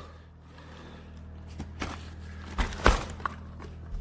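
Dyson Ball Animal 2 upright vacuum being handled and tipped into floor mode, its plastic body giving a few clicks and two louder clunks near the end, over a steady low hum; the motor is not running.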